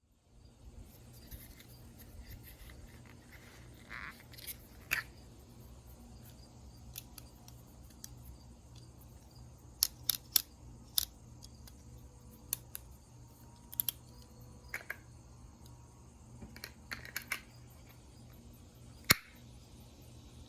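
A multitool being handled: scattered small sharp clicks and scrapes, a few of them louder, over a faint steady hum.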